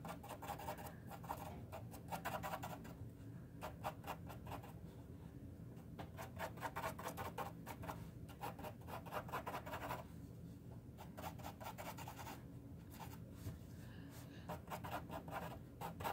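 Mechanical pencil lead scratching on paper in quick, short, firmly pressed strokes as eyebrow hairs are darkened. The strokes come in runs broken by brief pauses.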